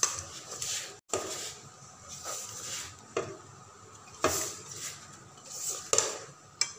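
Rice flour and gram flour being mixed by hand with water in a metal pot: rubbing, scraping swishes about once a second as the fingers work the flour against the pot, with a few sharp knocks on the metal.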